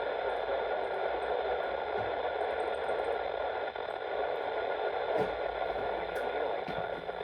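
Steady radio static: an even hiss from a radio receiver with no speech on the channel, with a few faint ticks near the end.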